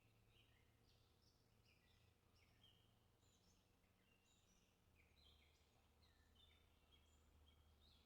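Near silence, with faint, short, high chirping notes coming in quick succession over a low hum.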